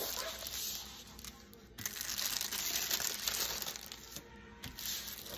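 Diamond painting canvas and its clear plastic cover film crinkling and rustling as it is unrolled and smoothed flat by hand, in uneven stretches, loudest in the middle.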